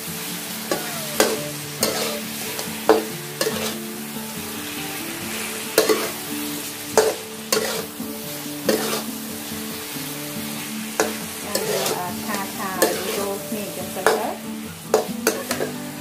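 Shrimp sizzling in a sticky soy and sugar sauce in a metal wok as a metal spatula stirs and scrapes them. Sharp clanks of the spatula against the wok come at irregular intervals.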